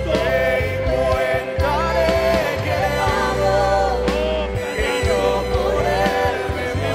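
Christian worship song: a voice singing a melody over steady instrumental backing.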